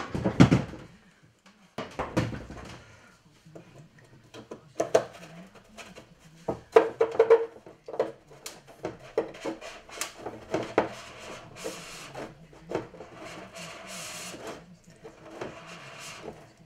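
Round file rasping by hand in a small hole in a model ship's hull, in many short, irregular scraping strokes.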